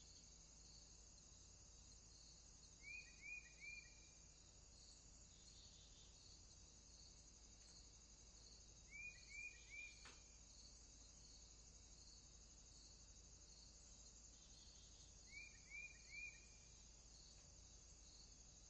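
Faint warm-weather outdoor ambience: a steady, pulsing chorus of insects, with a bird calling three quick notes three times, about six seconds apart.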